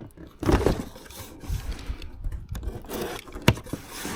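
Cardboard box and packaging being handled and pulled open: irregular scraping and rustling, with one sharp knock about three and a half seconds in.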